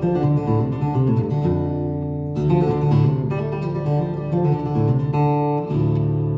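Solo acoustic guitar played live, plucked notes and chords moving through a piece; near the end a chord is left ringing.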